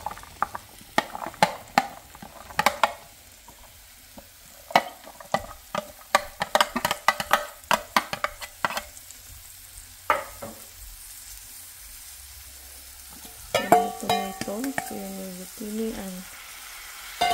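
Diced sweet potato, zucchini and tomato pouring in several batches into a hot frying pan of browned chicken, the pieces clattering in over a sizzle. A brief pitched sound comes about three-quarters of the way through.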